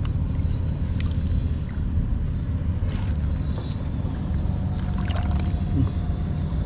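A steady low motor-like rumble, with a few short clicks about 1, 3 and 5 seconds in.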